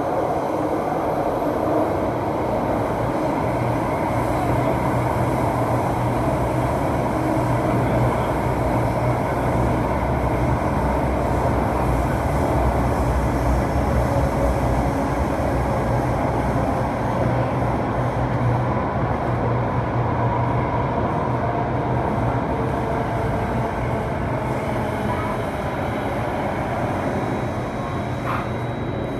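Singapore MRT Circle Line train running through a tunnel, heard from inside the car: a steady rumble of wheels on rail, easing off slightly near the end. A thin high tone comes in just before the end.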